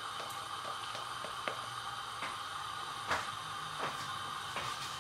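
Quiet kitchen room tone with a low steady hum, broken by a few faint light clicks and taps from a teaspoon as ground black pepper is tipped into a pot of water.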